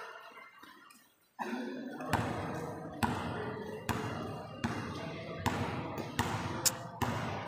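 A basketball being dribbled on a hard court, each bounce a sharp slap with a short echo in a large gym, coming about once a second. The sound fades almost to silence at the start and comes back about a second and a half in.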